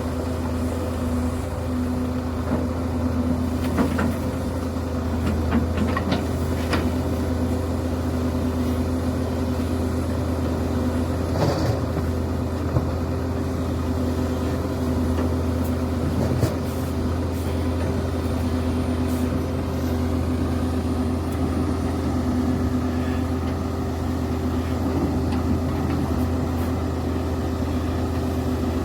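Diesel engine of a Link-Belt excavator running steadily, with a few short knocks now and then.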